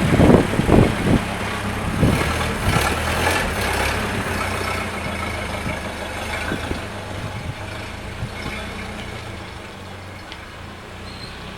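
1931 Ford Model A's four-cylinder flathead engine running steadily as the car drives. There are several knocks in the first second or so, and the sound slowly grows quieter.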